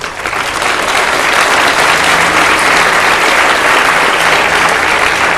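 Audience applauding: many people clapping, swelling over about the first second and then holding steady.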